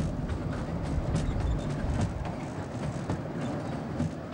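Safari-themed amusement ride train running along its rail track: a steady low rumble with scattered clicks and rattles from the wheels and carriages.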